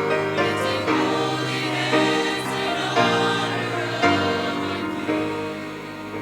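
College gospel choir singing a worship song in full harmony, with a new chord or accent about once a second.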